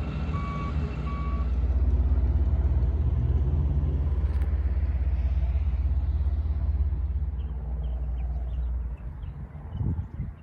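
Reversing alarm on heavy equipment, beeping at an even pace and stopping after about a second and a half, over a steady low vehicle rumble that falls away near the end.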